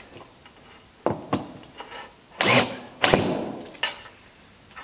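Cordless drill set to high torque, driving wood screws home in several short bursts, the loudest about two and a half and three seconds in, as the screws draw new plank ends down tight against the boat's frame.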